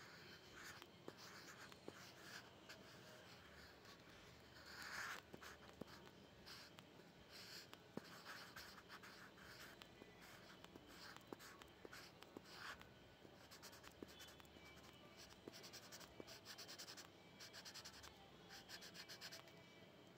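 Faint scratching of a pencil on textured drawing paper in short strokes with small taps. In the last several seconds it turns into quick, repeated shading strokes.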